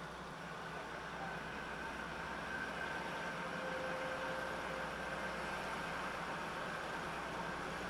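Diesel railcar running at a station: a steady engine rumble with a faint whine, slowly growing louder.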